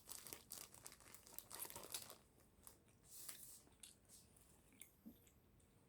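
Faint crinkling and crackling of handled crinkly material, dense for about the first two seconds, then thinning to a few scattered clicks.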